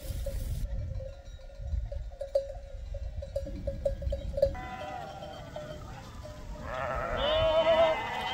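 Bells on a moving flock of sheep clinking irregularly, then sheep bleating from about halfway through, with a long, loud, wavering bleat near the end.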